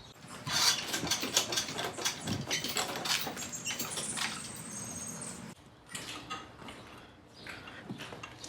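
Floor jack being pumped to raise the car further: a quick run of clicking and rattling strokes with a brief high squeak about four seconds in, then fainter, sparser clicks.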